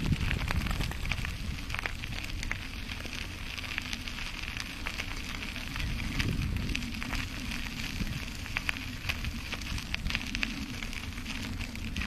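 Bicycle riding over a rough path: a continuous crackle of tyres on loose grit, with wind rumbling on the microphone.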